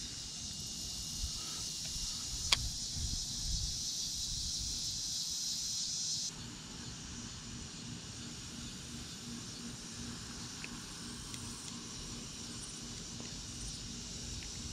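Steady high-pitched insect chorus from the pond's grassy bank, louder for the first six seconds and then dropping to a lower level, with a single sharp click about two and a half seconds in.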